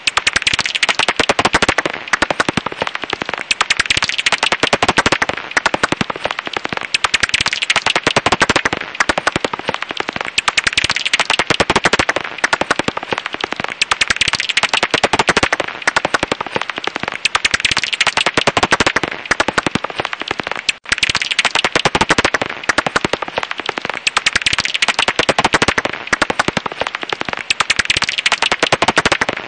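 Japanese house bat (Pipistrellus abramus) calls: a loud, dense, rapid crackle of clicks with one brief break about two-thirds of the way through.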